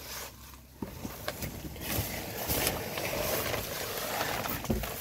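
Rustling and scraping of a person crawling over a crawlspace floor, with a few knocks, growing louder after about a second.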